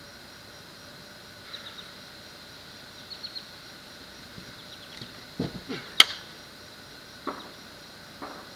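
A man diving for cover on a grass lawn: several dull thuds of footfalls and his body hitting the ground. About six seconds in there is one sharp, loud snap, and a few faint high chirps come in the first half over a steady outdoor hiss.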